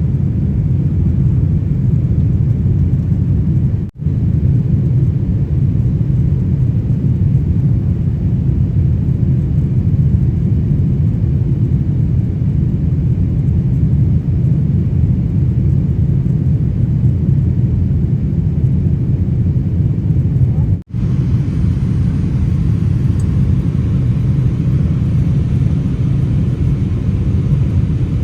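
Steady low rumble of airliner cabin noise, jet engines and rushing air heard from a window seat, briefly cut out twice.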